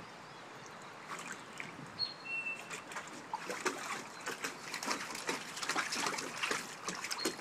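Golden Retriever puppy splashing and pawing at shallow water in a plastic kiddie pool, the splashes coming thicker through the second half.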